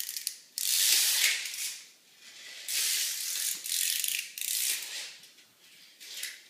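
Clockwork spring of a small wind-up toy being wound by hand, the key's ratchet clicking rapidly in several separate turns with short pauses between them.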